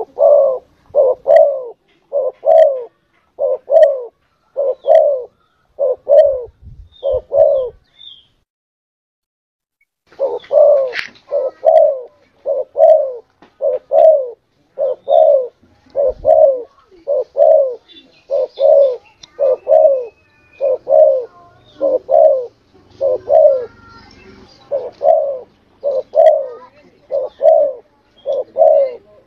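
Spotted dove (tekukur) cooing: a steady run of short coos, about three every two seconds, that stops for about two seconds of silence a quarter of the way in and then goes on. Faint high chirping of small birds sounds behind it midway.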